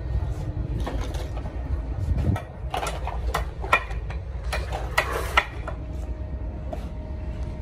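Sharp knocks and clicks of hand work on the timber bracing of a door frame, bunched in the middle with the loudest near the end, over a steady low rumble.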